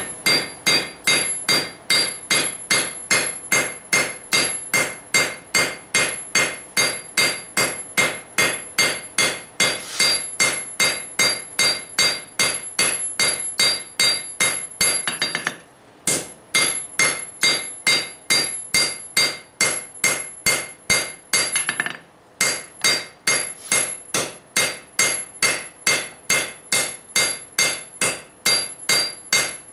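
Hand hammer striking a red-hot steel froe blade on an anvil in a steady, rapid rhythm, each blow ringing off the anvil, with two short breaks about halfway and three quarters of the way through. The blade is being drawn out to stretch it wider and thinner.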